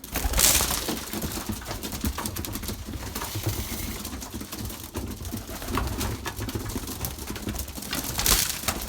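Racing pigeons cooing and pecking at grain in a loft, with many quick pecking clicks. Feed grain rattles down just after the start and again near the end.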